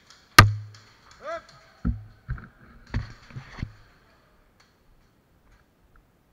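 One loud, sharp knock, then a short cry whose pitch rises and falls, then a run of five or so dull thumps over the next two seconds.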